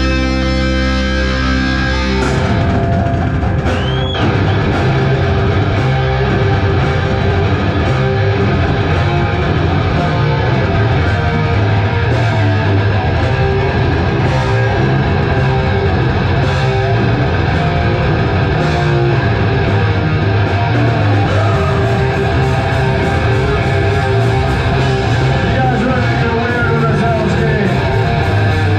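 Live heavy rock band with two electric guitars, bass and drums playing. A held, ringing guitar chord gives way about two seconds in to the full band playing a heavy riff over a steady drum beat, with a short rising squeal about four seconds in.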